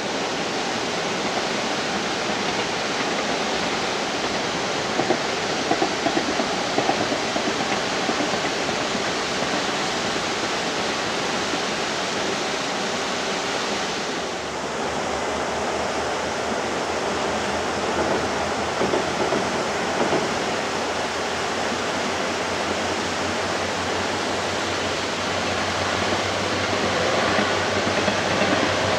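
A steady rushing noise throughout. In the last few seconds the low hum of a KiHa 110 series diesel railcar grows as it comes by.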